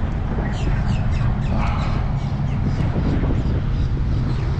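Birds calling, many short repeated calls overlapping, over a steady low rumble.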